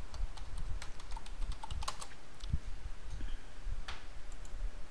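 Computer keyboard typing: a run of short, irregular keystrokes as a user name and password are entered.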